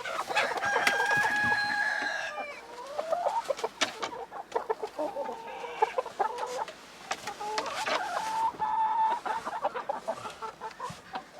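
Chickens in a coop clucking and calling around a person at close range, with one long drawn-out call in the first couple of seconds, then shorter clucks.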